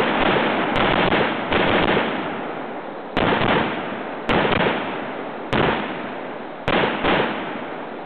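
Faxon ARAK-21 rifle firing single shots, seven in all at uneven spacing, the last two close together. Each shot is followed by an echo that fades over about a second.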